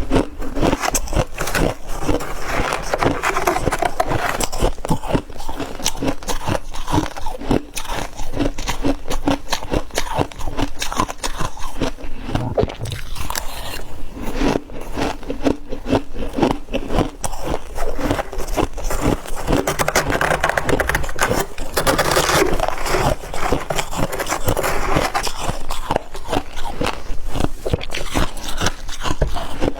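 Close-miked biting and chewing of soft, dry freezer frost: dense, continuous crunching and crackling that goes on without pause.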